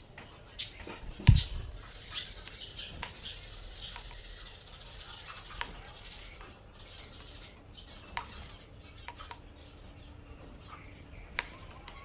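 Male bird attacking its reflection in a motorcycle mirror: scattered sharp taps and wing flaps, with one loud thump about a second in.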